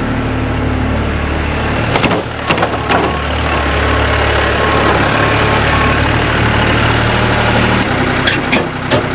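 New Holland TC35DA tractor's three-cylinder diesel engine idling steadily just after a hard cold start, with its note dropping about eight seconds in. A few sharp knocks sound around two to three seconds in and again near the end.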